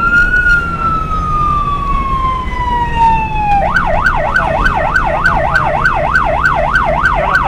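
Vehicle siren: a slow wail falling in pitch, then a little past halfway switching to a fast yelp sweeping up and down two to three times a second, over the steady low engine and road noise inside a truck cab.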